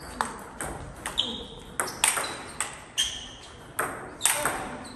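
Table tennis rally: the ball clicking back and forth between the rubber paddles and the table, about two hits a second, some table bounces leaving a short high ping.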